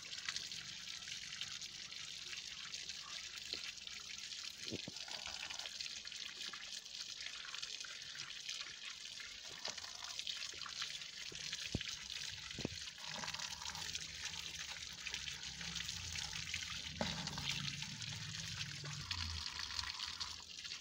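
Thin stream of running water splashing over potatoes as they are rubbed clean by hand, trickling and dripping onto a wicker basket and grass. Faint and steady, with a few light knocks.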